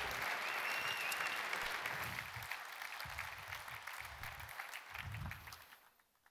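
Audience applauding, the clapping gradually fading and dying away near the end.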